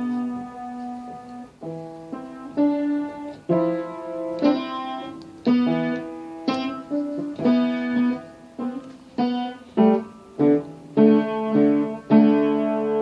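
Music: a keyboard melody played as separate struck notes, each ringing and then fading, about one or two notes a second.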